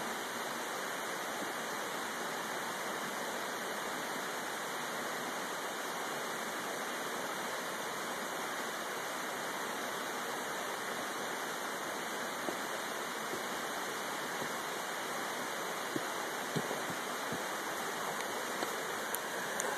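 Water from a tall waterfall, about 75 feet high, pouring steadily down a rock face into a creek, an even rushing with a few faint ticks near the end.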